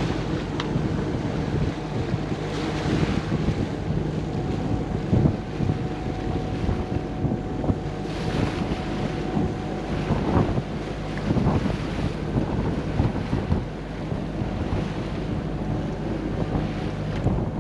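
A Gulfstar 40 sailboat under power: its inboard engine runs with a steady drone, mixed with wind buffeting the microphone and the wash of water.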